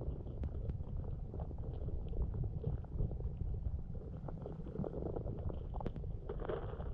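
Underwater ambience heard through a camera's waterproof housing: a steady, muffled low rumble of moving water, with scattered faint clicks and ticks.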